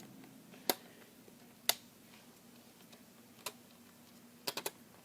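Scattered sharp clicks and taps of small parts being handled as the ground wire is taken off the old microwave control panel. There are single clicks about a second apart and a quick cluster of three near the end, over a faint steady hum.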